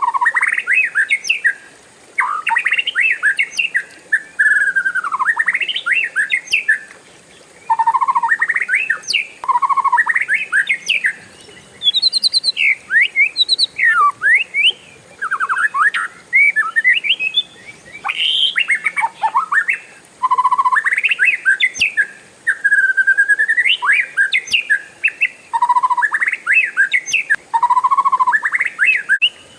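Oriental magpie-robin (kacer) singing a varied song of whistles, trills and quick rising and falling notes, in phrases a second or two long with short breaks between.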